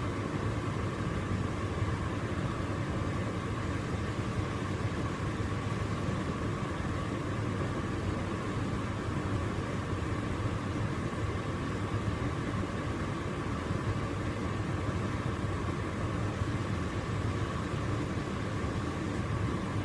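Hotpoint tumble dryer running with its drum turning: a steady hum with a constant higher tone above it.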